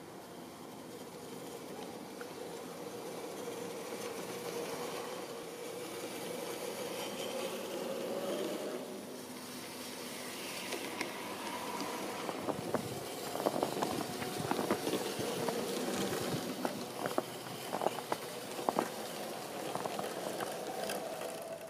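LGB model electric locomotive's motor and gears whining steadily as the train runs through snow with its snow plow, the tone rising slightly about eight seconds in. From about twelve seconds in, irregular sharp clicks and crackles come through on top of the whine.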